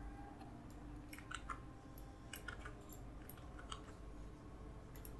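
Faint, irregular keystroke clicks of a computer keyboard over a low steady hum.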